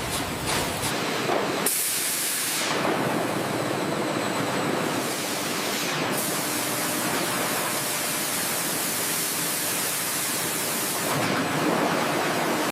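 Steady hiss of water jets spraying in a pineapple washing line. It comes in strongly about two seconds in, after a short stretch of machinery rumble and clatter.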